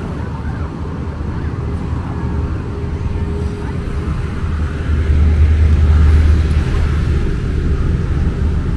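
Street traffic: a steady low rumble of motor vehicles, swelling as one passes close about five seconds in and easing off again.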